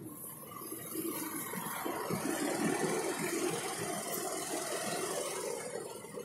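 Fendt tractor's diesel engine running under load while it tows a combine harvester. It builds up about a second in and then holds steady.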